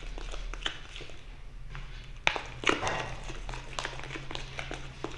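Homemade clear slime being stirred in a plastic pot: irregular sticky squelches and sharp clicks, with a few louder strokes midway. The slime is not yet activated and still pulls into stringy strands.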